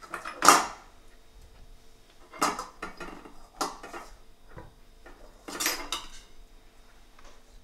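Kitchenware clattering as potatoes are taken out of a metal bowl and set on a wooden chopping board: a handful of separate knocks and clinks, the loudest about half a second in.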